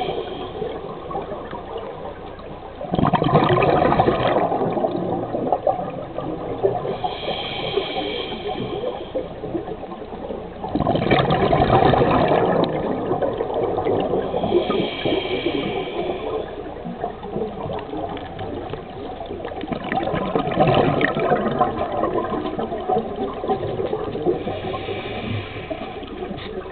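Scuba diver breathing through a regulator underwater: three loud rushes of exhaled bubbles, each lasting a second or two, alternating with quieter whistling hisses on the inhales, in a slow cycle of about eight seconds.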